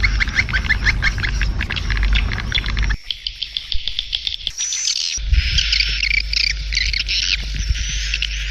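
Swiftlet calling-sound track: many swiftlets twittering in dense, rapid high chirps, a lure sound played to draw swiftlets to nest houses. The mix changes abruptly about three seconds in and again about five seconds in.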